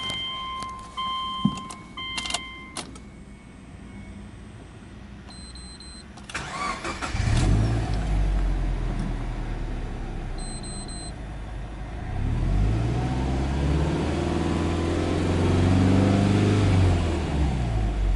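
A few short electronic beeps, then the 2005 Subaru Legacy 2.0GT's turbocharged 2.0-litre flat-four is cranked by the starter and catches about seven seconds in. It settles into a fast idle on a cold start, then the revs rise and fall slowly once near the end.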